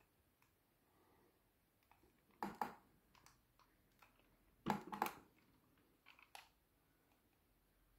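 Handling noise: three short clusters of clicks and rattles of plastic being moved and pressed, about two and a half, five and six seconds in, with a few lone ticks between, while the boombox is being switched on.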